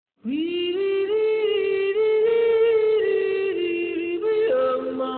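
A wordless sung melody from a single voice: it slides up into the first note, then holds and steps between sustained notes. About four and a half seconds in, a second, lower note joins an octave below.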